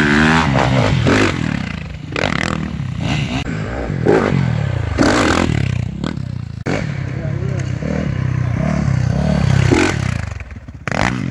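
Dirt bike engine revving up and down as the bike climbs and rides a dirt trail, with the engine pitch rising and falling repeatedly and several abrupt changes in the sound.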